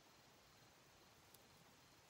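Near silence: faint steady hiss, with one tiny click about halfway through.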